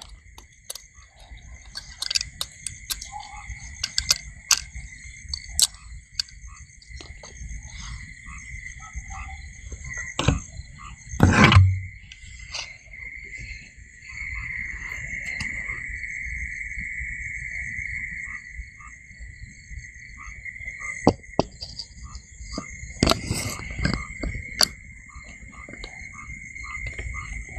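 Steady night chorus of insects and frogs, a shrill trill held at two pitches, with clicks and knocks from a phone mount being handled and fitted on a motorcycle handlebar. The loudest knock comes about eleven seconds in, and another cluster of knocks comes a few seconds before the end.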